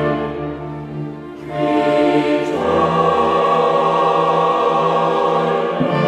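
Slow orchestral background music with choir voices, holding long chords; it dips about a second in, then swells into a fuller chord.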